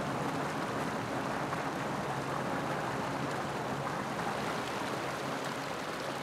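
Mountain stream tumbling over ice-coated rocks: a steady rush and splash of running water.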